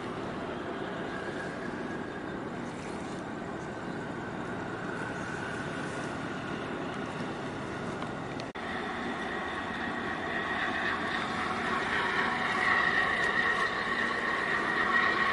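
Steady engine drone with a short break about eight seconds in, after which a higher, steady whine grows louder.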